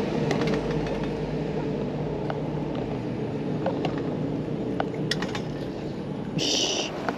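Steady low rumble of road traffic, with faint scattered light clicks and a brief high-pitched hiss about six and a half seconds in.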